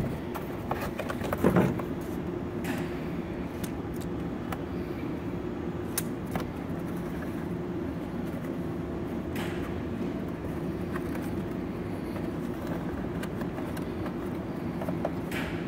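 Cardboard panels being handled and folded, giving a few scattered soft taps and crinkles over a steady low hum of room noise.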